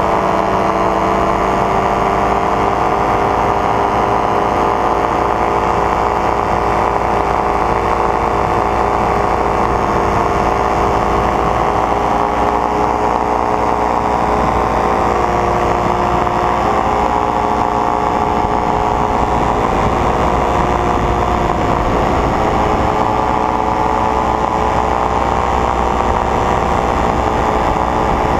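Paramotor engine and propeller running steadily at cruise power, with a slight rise and fall in pitch about halfway through.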